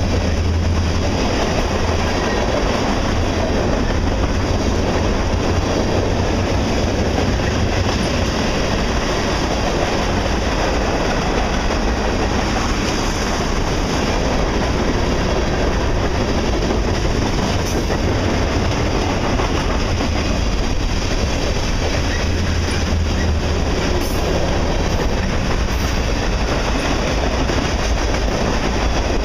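Freight cars of a manifest train, covered hoppers and then gondolas, rolling steadily past. Their steel wheels rumble and clatter over the rail.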